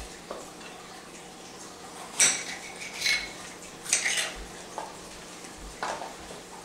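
Kitchen knife cutting bell pepper on a cutting board: five sharp knocks of the blade against the board, about a second apart, beginning about two seconds in.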